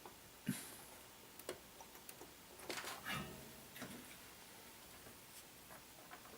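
Scattered small clicks and taps of hand tools working on a stereo receiver's circuit board while capacitors are desoldered and replaced, with a sharper click about half a second in and a cluster of taps around three seconds in.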